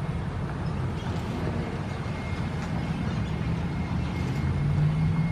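Steady low rumble of road traffic, with a low hum growing stronger near the end.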